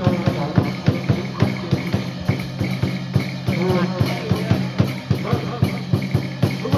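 Music driven by a rapid, steady drumbeat over a held low tone, with a wavering melody line above it.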